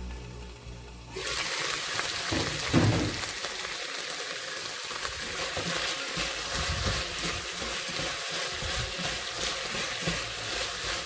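Wok of shredded pork, bell peppers and onion sizzling as it is stir-fried, with a spatula knocking and scraping against the wok. The sizzle starts suddenly about a second in, and a single loud knock comes near three seconds.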